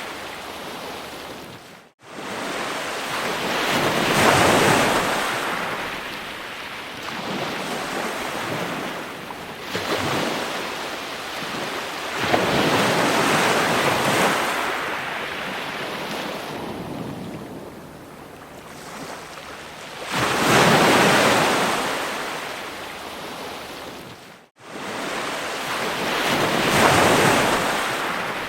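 Ocean waves breaking on a shore, the surf swelling and drawing back every few seconds. The sound cuts out abruptly for an instant twice, about two seconds in and near the end.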